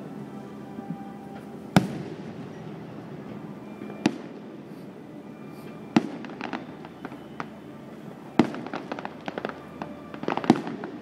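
Aerial firework shells bursting: five sharp booms about two seconds apart, the later ones followed by rapid crackling pops from crackling stars, thickest near the end.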